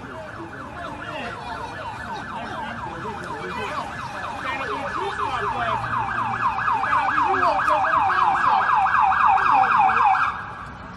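Emergency vehicle siren in fast yelp mode, rising and falling about four times a second. It grows louder as it comes closer, then cuts off near the end.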